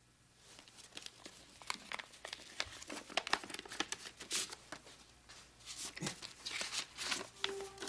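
Paper rustling and crinkling as a stack of mail envelopes is handled and sorted one by one, in short irregular rustles and soft clicks.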